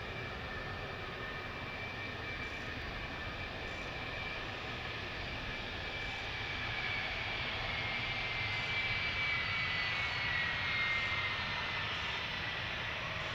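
Jet aircraft engines with a steady whine, growing louder and peaking near the end as the whine dips slightly in pitch: a large military jet passing close by.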